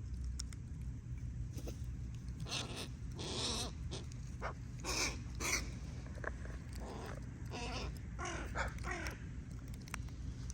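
Crows cawing: several caws, in twos and threes, over a steady low rumble.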